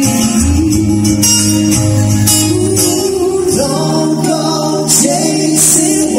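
Background music: a song with singing over a bass line and light percussion.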